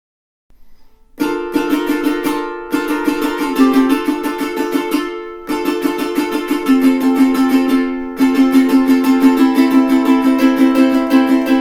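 Millar JA-260G all-solid acacia jumbo tenor ukulele strummed in a steady rhythm, the chords changing every few seconds. The playing starts about a second in.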